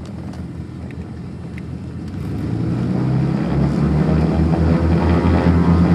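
The engines and propellers of a twin-engine Beechcraft Baron 58, heard from inside the cabin. Their drone grows louder and rises in pitch from about two seconds in as power comes up for takeoff, with an even throbbing beat underneath.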